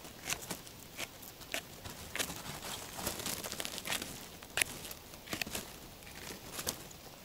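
Close rustling of grass and dry stems with scattered small crackles and clicks, as a birch bolete mushroom is handled and cut with a knife at ground level.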